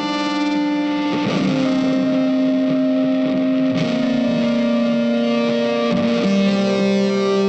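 Background music: sustained guitar notes with an effects-processed, slightly distorted tone, changing pitch every second or two.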